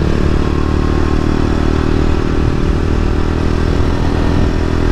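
Sport motorcycle's engine running at a steady speed while riding, the note holding level without revving up or down, under a constant rush of wind noise.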